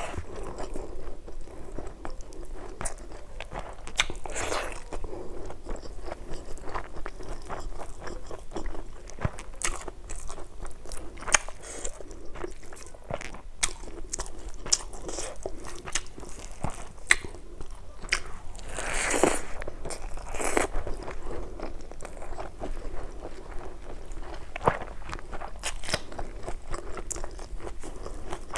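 Close-miked chewing and crunching of fried chicken parts and rice eaten by hand: a dense run of irregular crisp crunches and wet mouth clicks, with a few longer noisy swells, the loudest about two-thirds of the way in.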